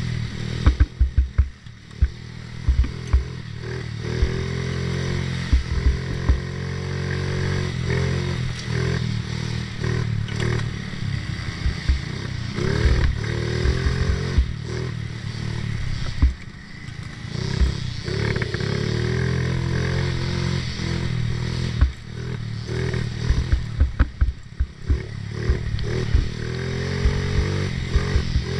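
Small 50cc youth ATV engine revving up and down as it is ridden hard over rough dirt trail, with frequent sharp knocks and rattles as the quad hits bumps. The engine drops off briefly a few times where the throttle is closed.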